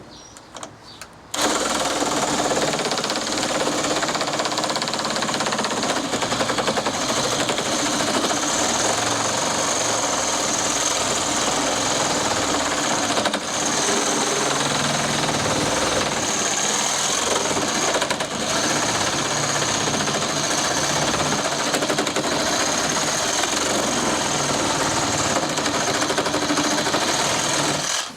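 Cordless reciprocating saw with an 8-inch wood blade cutting through treated pine decking boards. It starts about a second in and runs almost without a break, with two brief dips partway through.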